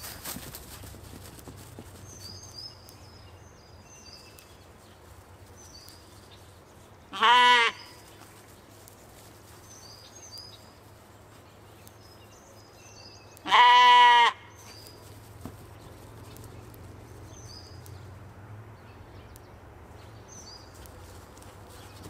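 Katahdin sheep bleating twice, about seven seconds in and again about fourteen seconds in. Each bleat is a short, wavering call, and the second is longer.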